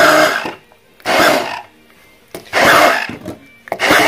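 Stick (immersion) blender puréeing a thick sauce in a plastic beaker, switched on in short pulses: four bursts of motor whir, each under a second, with brief pauses between, the last starting near the end.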